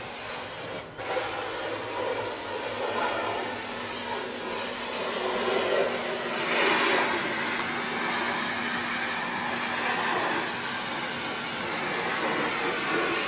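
John Deere 330CLC tracked excavator's diesel engine running, heard from inside the cab as a steady hissing rush of engine and fan noise with a faint underlying hum, swelling briefly about halfway through.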